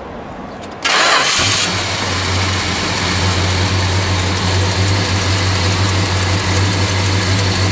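A 1970 Dodge Super Bee's 440 Six Pack V8, with three two-barrel carburetors, fires up about a second in with a short loud burst. It then settles into a steady idle with a low rumble and a little shake.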